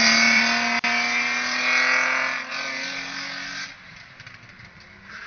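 Rally car passing at racing speed, its engine note loud at first and falling slightly in pitch as it moves away. It fades out after about three and a half seconds.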